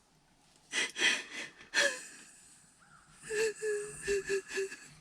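A woman's shaky, gasping breaths, followed near the end by about five short, high whimpering sobs.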